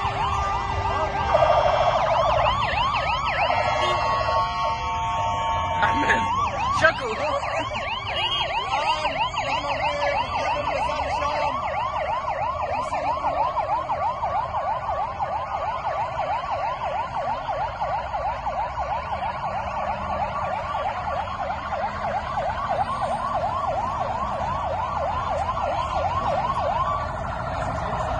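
Fire engine sirens. At first several sirens sound over one another in steady and wailing tones. From about six seconds in, one fast yelp takes over, rising and falling about three times a second, and stops shortly before the end.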